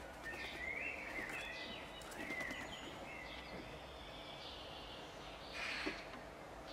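Birds calling: a few whistled, sliding calls in the first half, then a short harsh call a little before the end.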